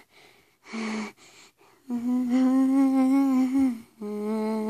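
A person humming a sad, closed-mouth hum: a short hum about a second in, then two long held notes of about two seconds each, the second a little lower.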